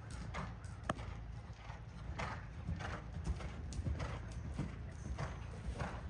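Hoofbeats of a ridden horse moving out on soft arena footing: a steady run of dull thuds, roughly two a second, over a low rumble.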